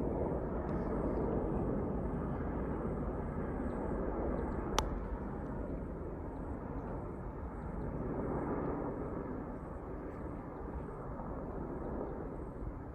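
AgustaWestland AW101 Merlin helicopters flying past, a steady rotor and engine rumble that slowly fades. A single sharp click about five seconds in.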